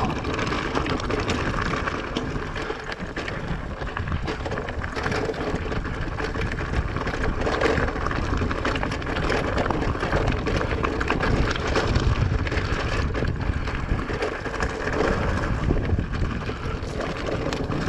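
E-mountain bike riding over a rough, wet trail: tyres rolling and crunching over stones, with constant small rattles and knocks from the bike and a low rumble of wind on the microphone.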